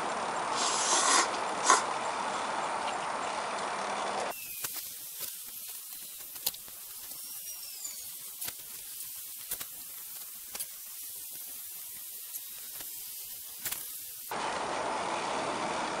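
A person slurping and drinking noodle broth from a cup-ramen bowl, with a few short slurps in the first two seconds. It is followed by a quieter stretch of faint high hiss and scattered small clicks.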